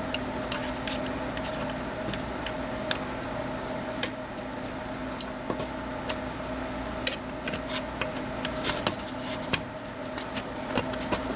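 Irregular light metallic clicks and taps from hand-fitting the spring into the extended magazine release of a Saiga 12 shotgun, with a steady low hum underneath.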